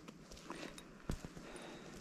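Faint footsteps on an asphalt road, a few steps roughly half a second apart.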